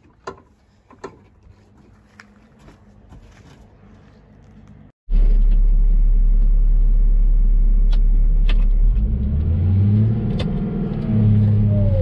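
A few faint clicks and knocks, then about five seconds in a large farm machine's engine cuts in loud and steady. Its revs shift up and down over the last few seconds.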